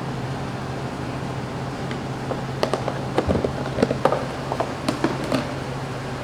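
Light clicks and knocks of kitchen work, with utensils or containers being handled, over a steady ventilation hum. The clatter comes in a run in the middle.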